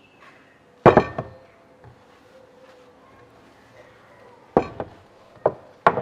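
A few sharp knocks or clatters: one loud knock about a second in, then three more close together near the end.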